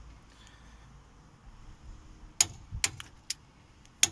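Torque wrench on a front brake caliper bridge bolt: a quiet stretch, then four sharp metallic clicks in quick succession about two and a half seconds in.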